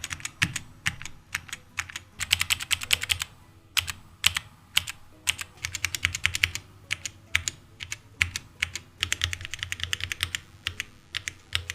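Mechanical keyboard keys typed in quick runs of sharp clicks with short pauses between them, a sound demonstration of different mechanical switch types.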